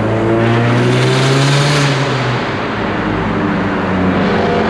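Mazdaspeed3's turbocharged 2.3-litre four-cylinder on a full CPE catless, straight-piped exhaust, pulling under throttle with the pitch rising for about two seconds as a rushing hiss builds over it. The note then drops as the throttle comes off, and it settles into a lower, steady exhaust drone.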